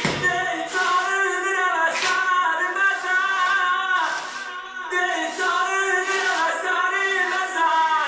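A voice singing, with music.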